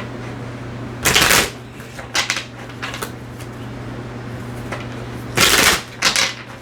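Tarot cards being shuffled and handled in short riffling bursts, the two loudest about a second in and near the end, over a steady low hum.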